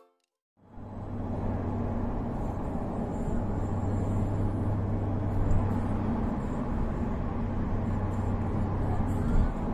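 Car driving at speed on an expressway, heard from inside the cabin: steady tyre and road noise with a constant low engine hum, starting about half a second in after a moment of silence.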